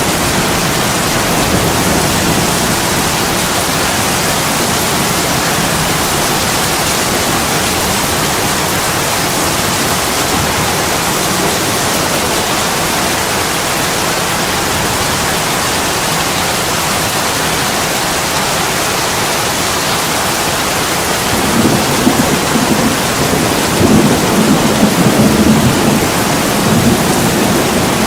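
Heavy rain pouring down steadily on window glass. A low rumble of thunder rolls in about three quarters of the way through and lasts several seconds.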